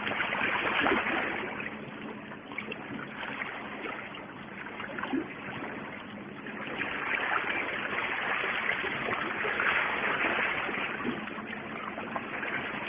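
Sea water washing and lapping against the rocks of a breakwater, a steady hiss that swells and eases every few seconds.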